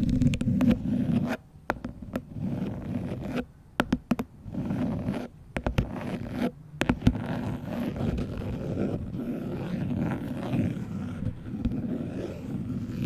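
Long fingernails scratching a phone case close to the microphone, with a few sharp taps mixed into the scratching and short pauses in the first half.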